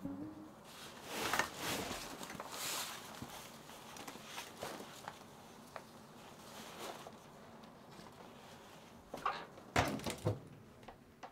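Faint rustling and handling noises, then a few quick knocks near the end.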